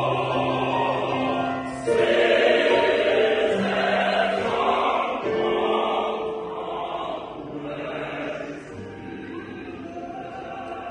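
A large mixed choir of men and women singing a hymn in harmony, holding long chords that change every few seconds. The singing grows quieter about eight seconds in.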